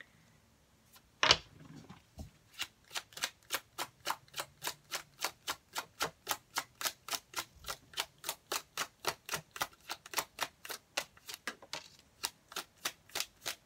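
Tarot cards being shuffled overhand, with a sharp snap of the deck about a second in and then an even run of card slaps, about four a second.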